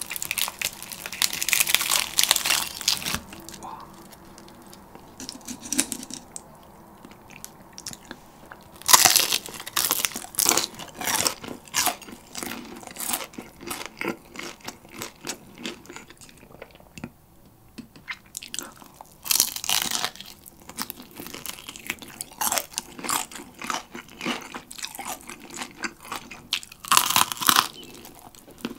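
Crispy-battered Korean market fried chicken being pulled apart by hand, its crust crackling loudly for the first few seconds. Then come bites and close chewing of the crunchy crust, with loud crunches at intervals.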